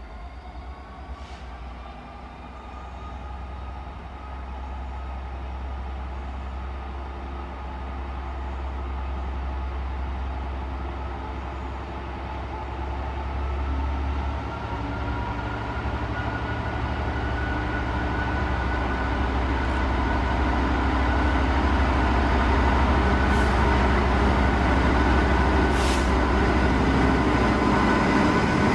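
Class 66 diesel locomotive's two-stroke V12 engine running under power as it hauls a loaded freight train, a steady low drone with a higher whine that grows steadily louder as the locomotive approaches and draws level near the end.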